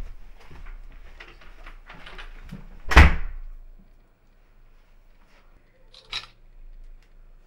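Soft rustling and light knocks of movement, then a door shutting with a loud thud about three seconds in. A short phone camera shutter click follows about six seconds in.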